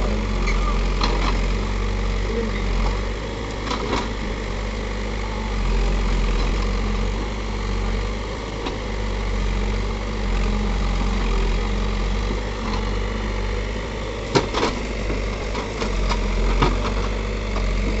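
Caterpillar 424B backhoe loader's diesel engine running steadily while the backhoe arm digs, with a few short knocks from the working arm and bucket. The sharpest knock comes about fourteen seconds in.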